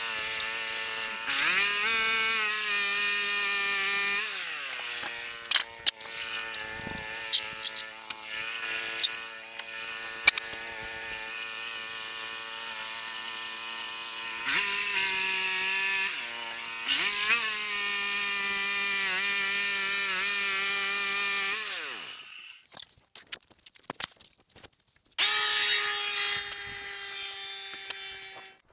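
Band sawmill running, its small engine driving the blade through a cherry log, with a bright hiss of cutting over the engine note; the engine pitch dips and recovers several times as the load changes. It stops about 22 seconds in, followed by some light clatter and a brief steady whir near the end.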